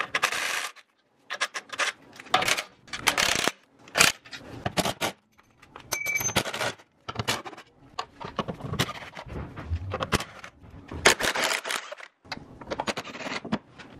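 Ratchet wrench and socket on the exhaust nuts and bolts, clicking and clinking in short, irregular spells as they are undone, with metal scraping on metal. A brief ring about six seconds in.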